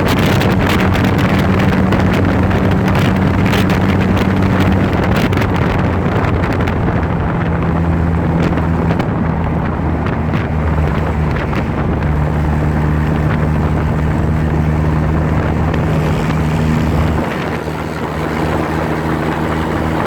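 Trike engine running under way, with heavy wind noise on the microphone. The engine note steps to a new steady pitch a few times, around 5, 12 and 17 seconds in, with a short dip in level at the last change.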